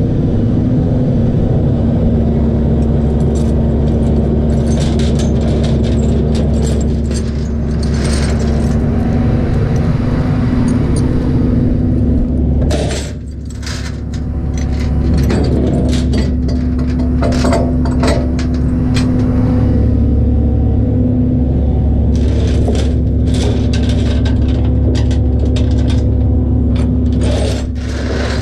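Tow truck's engine running with a steady drone, overlaid by frequent metallic clicks and rattles; the loudness dips briefly about halfway through.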